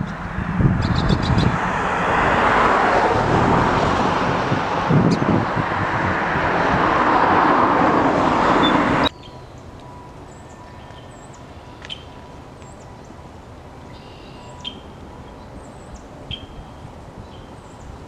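A loud, steady rushing noise like distant road traffic or wind cuts off suddenly about halfway through. What follows is a quiet background with short, high bird chirps every second or two.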